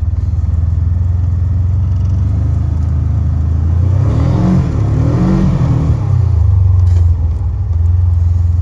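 Golf cart's gas engine running steadily under way, speeding up and easing off twice around the middle.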